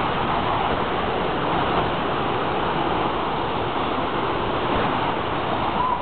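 Steady rush of a rocky mountain river tumbling over rapids.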